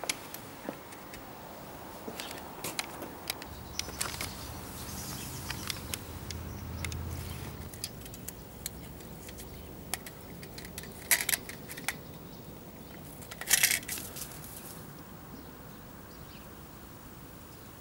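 Wire-mesh live-catch mouse trap being handled: scattered light metallic clicks and rattles, with two louder bursts of rattling a couple of seconds apart later on.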